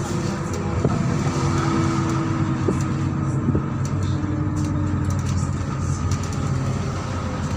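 MAZ-103 city bus under way: steady engine and drive rumble, with a thin steady whine that fades out about halfway through and a few short knocks or rattles.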